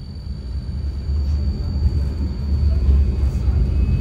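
Tram running with a low rumble that grows louder through the first few seconds, over a faint steady high whine.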